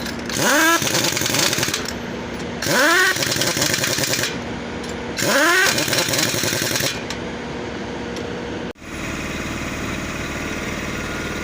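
Pneumatic impact wrench working on truck wheel nuts. It whines up and hammers in repeated bursts about two and a half seconds apart. After a sudden break, a steady engine hum takes over.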